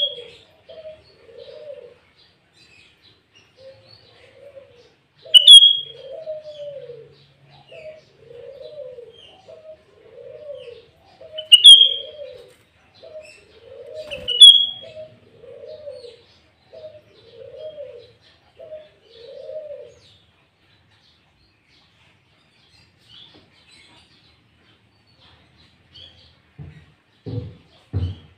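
Sooty-headed bulbul giving four loud, sharp, high calls spaced a few seconds apart, over a lower call repeated about once a second that stops about two-thirds of the way through. A few low thumps near the end.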